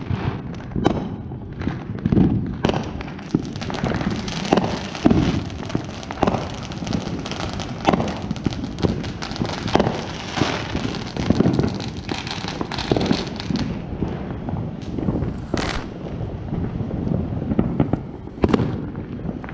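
Consumer fireworks going off all around: a dense, irregular barrage of overlapping bangs and booms with a crackling hiss over them. Over the last six seconds or so it thins to scattered single bangs.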